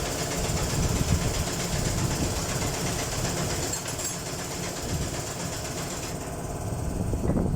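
Mercedes-Benz Actros 2040 truck's diesel engine running with a steady, rapid clatter. The higher hiss over it drops away about six seconds in.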